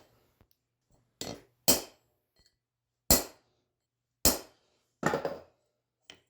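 Hammer blows stamping the pips into a small die forged on a railroad spike: five sharp metallic strikes about a second apart, with a faint tap near the end.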